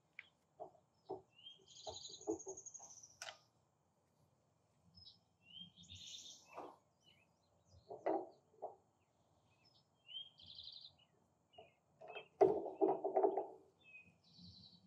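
Light clicks and knocks of small pressure-washer check valves and their O-rings being handled and fitted into a brass pump manifold by gloved hands, with a busier clatter near the end. A bird chirps a few times in the background.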